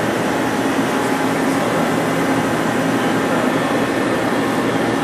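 Mori Seiki SL-25M CNC lathe running under power: a steady mechanical hum with a low tone.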